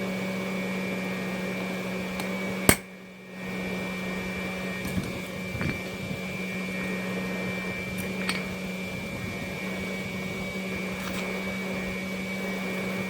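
One loud, sharp hammer blow on a maker's mark stamp, driving it into the hot iron drawer pull, about three seconds in, followed later by a few light metal taps, over a steady motor hum.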